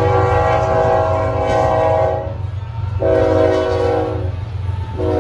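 Diesel freight locomotive's multi-note air horn sounding a long blast, then a shorter one, with a third starting near the end, over the steady low rumble of the passing train.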